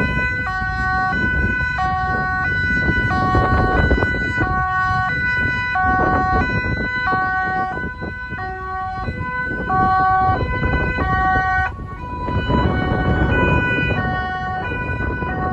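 Dutch ambulance two-tone siren alternating steadily between a high and a low note, each held for about 0.7 s, with a low rumble of idling traffic beneath.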